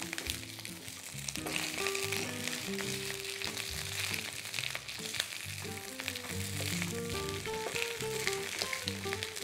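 Italian pork sausages sizzling in hot oil in a stainless steel frying pan, a steady hiss with frequent small pops. Background music with held notes plays along with it.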